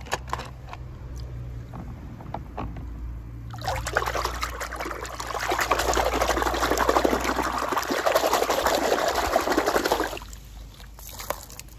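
A few light clicks of a toy being handled, then about six seconds of water splashing and sloshing in a plastic tub as a hand swishes a die-cast toy car through foamy water. The splashing stops sharply near the end.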